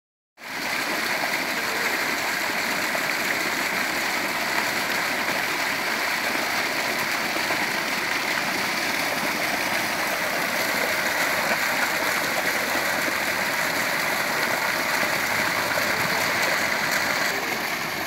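Water gushing without a break from a deep tube well's outlet pipe and splashing into the round basin below it: a steady rushing splash.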